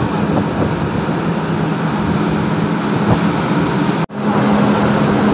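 A boat's diesel engine running with a steady low hum, under the rush of gale-force wind and rough, choppy water. The sound cuts out for an instant about four seconds in.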